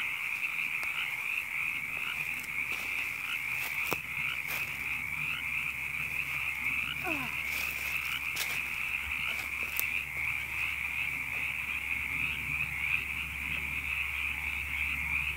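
A dense chorus of frogs calling, a continuous high-pitched din without a break, with a few faint clicks here and there.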